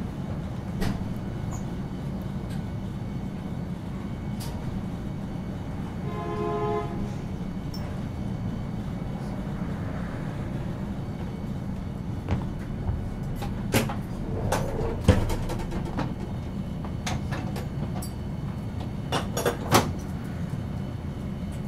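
Onboard sound of a 1950 Nippon Sharyo-built Series 202 tram car: a steady low rumble, a short pitched buzzer-like tone lasting about a second around six seconds in, and a run of sharp knocks and clicks in the second half.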